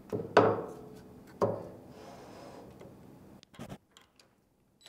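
A heavy steel milling vise set down on a milling machine's metal table: two loud metal clanks about a second apart, each ringing briefly. A few quick light clicks follow near the end.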